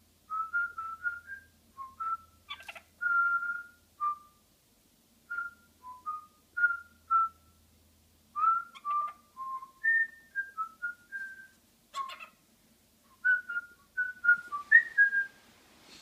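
Pet parrot whistling a run of short clear notes that step up and down in pitch, with a sharp click about three seconds in and another about twelve seconds in.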